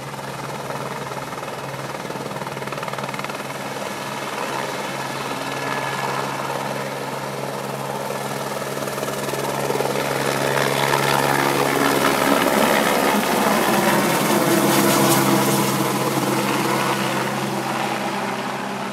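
Helicopter running on its pad, then lifting off and climbing away overhead, its rotor and turbine noise steady at first, growing louder as it rises and passes close, and easing off near the end as it moves away.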